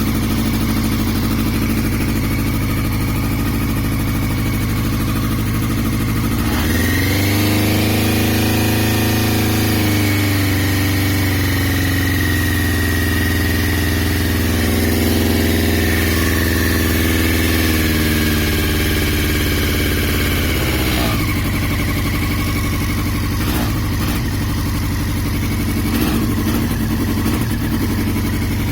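2002 Yamaha YZF-R6's inline-four engine idling, then held at raised revs for about fifteen seconds before dropping back to idle; the owner says it is misfiring, cause unknown.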